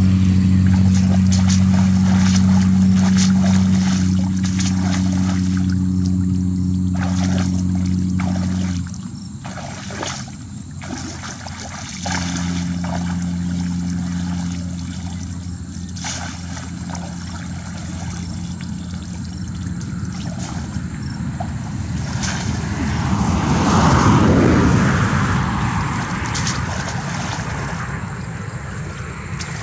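Steady drone of an engine running. It drops out about nine seconds in and comes back a few seconds later. Over it, water splashes and pours as a woven bamboo basket is scooped through shallow muddy water. Near the end a louder rush of noise swells and fades.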